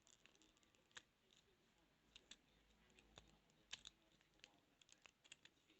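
Faint, irregular metallic clicks and ticks of a lock pick and tension wrench working the pins inside a 32mm padlock.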